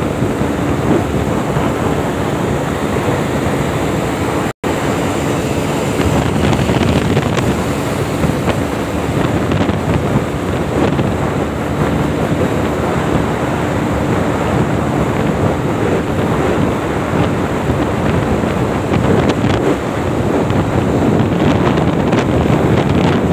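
Motorcycle riding at speed: engine running steadily under heavy wind noise on the microphone. The sound cuts out for a split second about four and a half seconds in.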